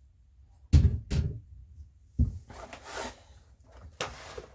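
Clunks and knocks of old metal tool parts being handled and set down on a hard surface: a pair of knocks about a second in, another near the middle with some rustling after it, and one more near the end.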